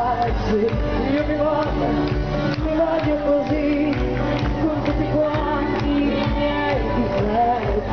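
Live pop band playing through a PA system: a woman's voice sings a wavering melody into a microphone over keyboards, bass and a steady drum beat.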